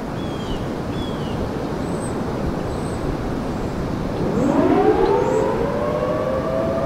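Wind rushing over the microphone, then about four seconds in a 1980 Federal Signal Thunderbolt 1003A outdoor warning siren starts winding up, its pitch climbing steeply and levelling off as the Full Attack cycle begins. It is heard from a distance against strong wind.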